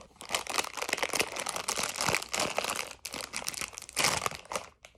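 Crisp packet crinkling and rustling as it is handled and opened: a rapid run of sharp crackles with a short break about three seconds in.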